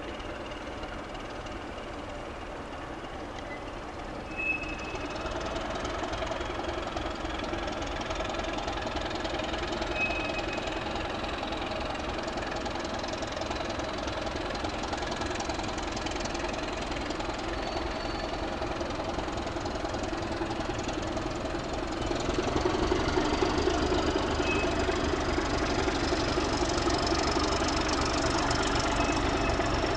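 Diesel engines of two class 752 locomotives running under load on an approaching freight train, unseen in the distance. The sound grows louder in steps, about four seconds in and again about 22 seconds in.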